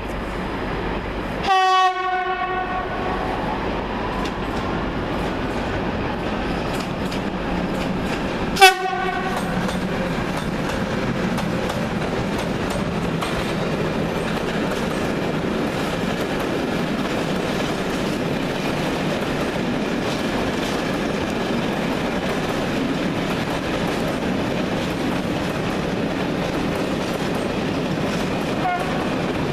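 Siemens Smartron electric locomotive at the head of a freight train sounding its horn twice: a short blast about a second and a half in, then a sharper, louder toot several seconds later. After that comes the steady rumble and clatter of the freight wagons' wheels rolling past.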